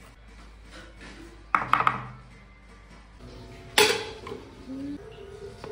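Kitchen cookware clattering: a ringing metal clink about a second and a half in, then a sharp knock as a wok is set down on the stove near the four-second mark, with soft background music underneath.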